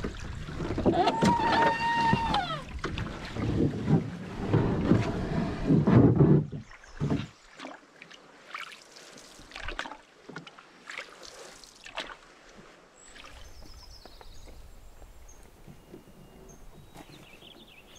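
A canoe moving on the water: paddle and water sounds, loud and dense for the first six or so seconds, with a long pitched sound rising and falling about a second in. After that the canoe goes quieter, with occasional short knocks and a few faint high bird chirps.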